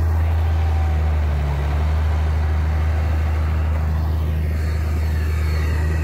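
A vehicle engine running steadily at an even low hum.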